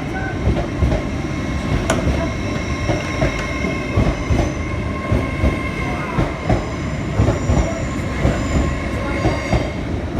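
A train rolling past, its wheels clacking over rail joints in uneven thumps, with faint high wheel squeals coming and going.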